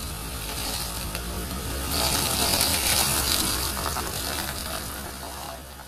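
A slowly rolling car tyre crushing a blue squishy ball on concrete: a crackling, squelching noise that builds to its loudest about two to three seconds in, then fades, over the car engine's low steady hum.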